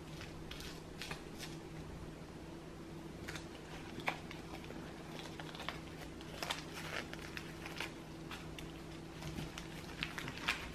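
Scattered light clicks and rustles of food and utensils being handled during gimbap making, over a steady low hum.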